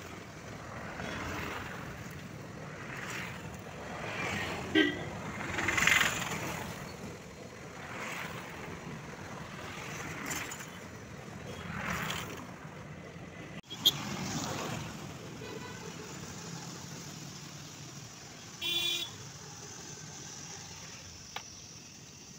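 Roadside traffic noise: vehicles passing, the noise swelling and fading several times, with a short vehicle horn toot near the end and a few sharp clicks.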